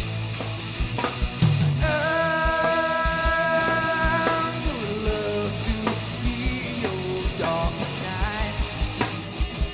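Live rock band playing: a kick drum beating steadily under electric guitars, with a long held lead note starting about two seconds in and shorter sliding notes after it.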